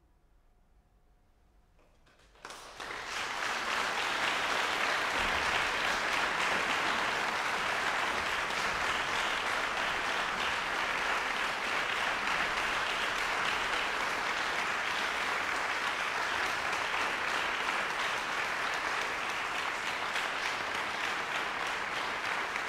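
Audience applauding, starting suddenly about two and a half seconds in after a quiet pause at the end of a choral piece, then holding steady.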